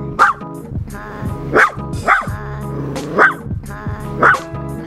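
Yorkshire terrier barking five times, short barks about a second apart, over background music.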